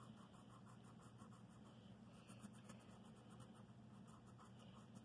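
Faint scratching of a wax crayon shading back and forth on sketchbook paper in quick, repeated strokes.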